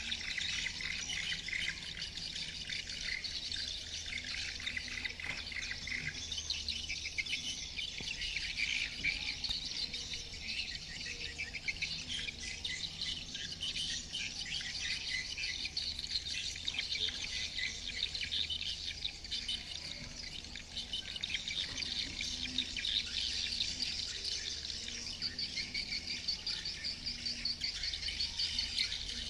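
Dense, continuous twittering and chirping of edible-nest swiftlets, many calls overlapping without a break: the lure call used to draw swiftlets to a swiftlet house. A steady low hum runs underneath.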